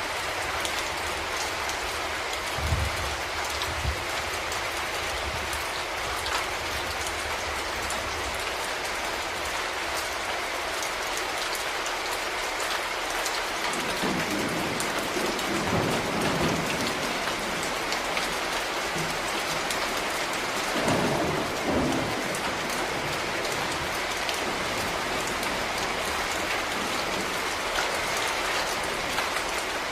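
Steady heavy rain hissing and pattering on surfaces. Low rumbles of thunder swell up about halfway through and again a few seconds later, with two short low thumps near the start.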